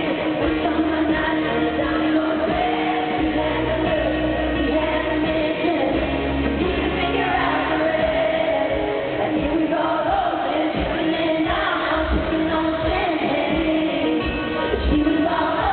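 Live country-rock band playing with a woman singing lead, echoing in an arena. The sound is muffled, with no high end.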